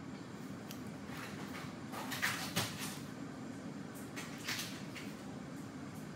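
Distant knocks and clatter of someone rummaging at a kitchen counter for batteries, loudest about two seconds in and again near four and a half seconds, over a steady low room hum.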